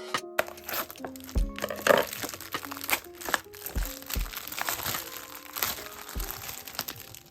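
Background music with a steady beat over continuous crinkling and rustling, with many small crackles, as something is handled.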